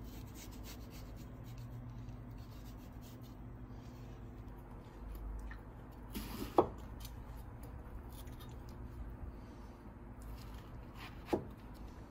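Kitchen knife paring the rind off a melon on a plastic cutting board: faint scraping and slicing, with two sharp knocks of the blade on the board, about six and a half seconds in and near the end, over a low steady hum.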